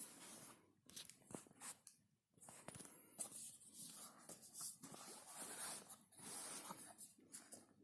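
Faint rustling, scraping and small clicks of packaging and the phone being handled, in short irregular bursts with brief pauses.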